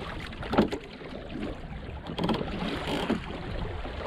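Wooden sailing kayak's hull slapping and splashing through choppy wake waves while quartering a jet ferry's wake, with wind on the microphone. The sharpest slap comes about half a second in, and a few smaller ones follow.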